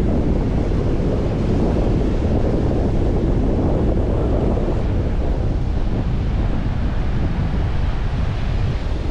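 Strong wind buffeting the microphone in a steady low rumble, with ocean surf beneath it.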